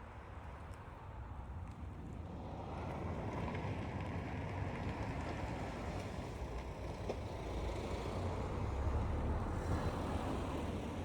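A car running, a low rumble with road-like noise that grows louder about two and a half seconds in and holds there.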